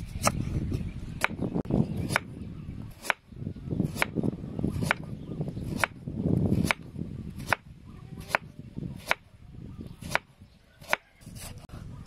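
Kitchen knife slicing through onion and carrot and knocking on a wooden chopping board, a sharp tap about once a second, over a low uneven rumble.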